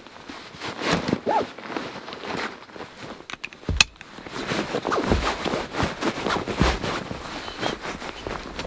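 Rustling of clothing and backpack straps as a heavy framed rucksack is settled on the shoulders and its straps are adjusted and fastened, with a sharp click about four seconds in.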